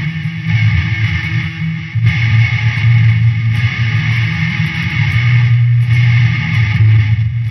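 Music played under the picture, with guitar and a heavy low end whose notes change every second or two.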